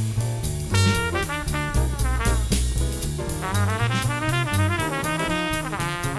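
Upbeat jazz background music with brass and drums, with a busy bass line stepping from note to note.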